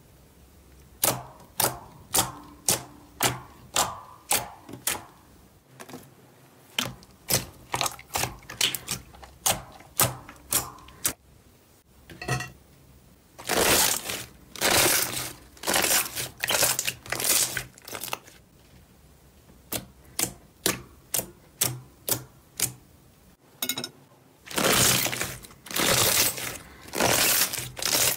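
Hands pressing and squeezing slime. For the first ten seconds or so there are sharp popping clicks, about two a second. From about halfway, and again near the end, they give way to longer, louder squelches, about two a second.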